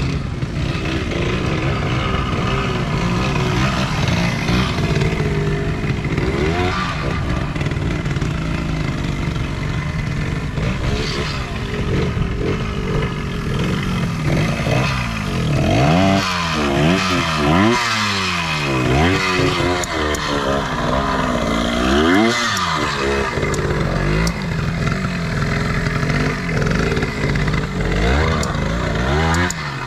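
Vintage twinshock trials motorcycle engine running with constant throttle changes. From about 15 to 23 seconds in, it revs up and down sharply several times in quick blips.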